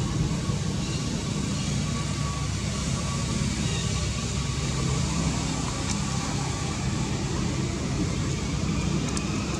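Steady low rumbling background noise, with a few faint brief high tones above it.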